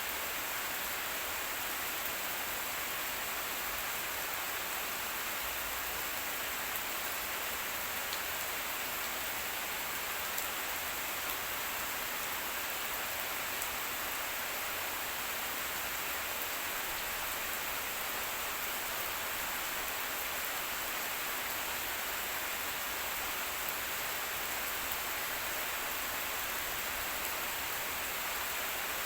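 Steady rain falling, an even hiss with an occasional louder drop.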